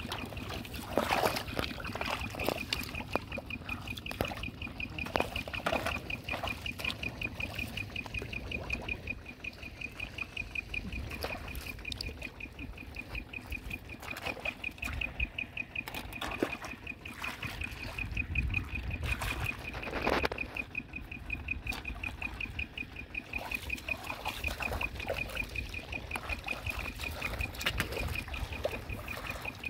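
Hands digging and splashing in shallow muddy paddy water, with scattered splashes and sloshes, the strongest about a second in and again about twenty seconds in. A steady, rapid high-pitched trill runs underneath.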